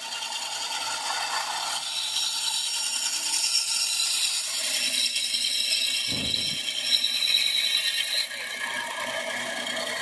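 Delta 10-inch bandsaw running with a rattling, scraping whir, the blade riding on a lower guide rebuilt with a shaft and two small bearings. The noise grows louder for several seconds in the middle and drops off suddenly near the end, with a single low thud partway through.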